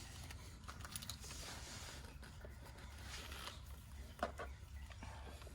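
Faint handling noise of small tools and wire: scattered light clicks and rustles, with a couple of sharper clicks about four seconds in, over a steady low hiss.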